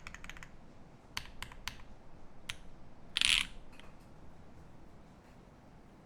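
Mechanical keyboard with a brass plate, lubed C3 Banana Split linear switches and GMK keycaps being typed on. A quick run of keystrokes ends about half a second in, then a few single keystrokes follow. About three seconds in there is a louder, longer rasping sound lasting a fraction of a second.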